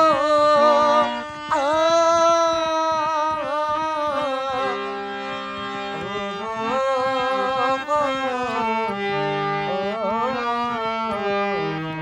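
A man singing with vibrato to his own hand-pumped harmonium, whose held reed notes step lower beneath the voice; the singing eases off near the end while the harmonium keeps sounding.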